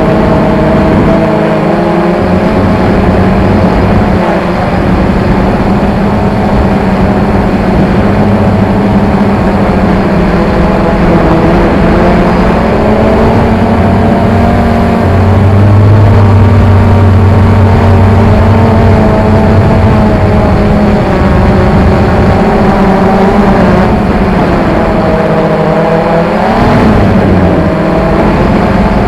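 Quadcopter's brushless motors and propellers running in flight, a steady droning hum whose pitch wavers slightly as the motors adjust, with a brief rise and fall in pitch near the end.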